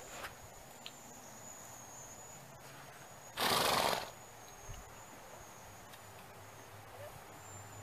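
A horse gives one short, loud snort, a half-second rush of breath through its nostrils, about halfway through.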